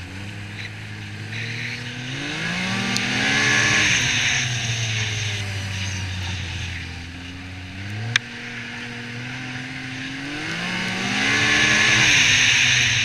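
Yamaha Viper XTX snowmobile engine running along a trail, its pitch climbing twice under throttle and easing back between, with a hiss of track and snow spray that swells as it speeds up. A single sharp click comes about eight seconds in.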